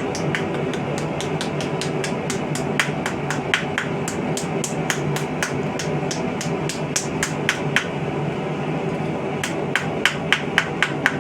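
Hand hammer striking a mild steel star blank on an anvil in a steady run of ringing blows, about three to four a second, flattening the piece after hole punching and chisel cuts. A few louder, brighter strikes come near the end, over a steady low hum.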